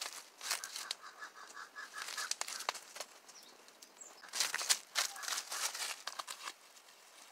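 Coconut-husk fire burning around roasting breadfruit, crackling and popping irregularly, with a louder spell of crackling about four and a half seconds in.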